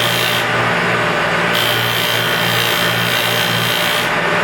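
Felder Profil 45 Format 4 shaper spinning a 60 mm Schleiffix aluminium sanding drum at about 3,500 rpm, its 80-grit paper rubbing the edge of a Baltic birch plywood circle in light passes over a steady motor hum. The sanding hiss thins about half a second in, comes back after about a second and a half, and thins again near the end as the work moves against the drum.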